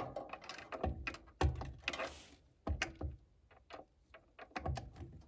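Scattered small clicks and knocks of screws and hand tools being handled while a screw is fitted into the furnace's draft inducer housing.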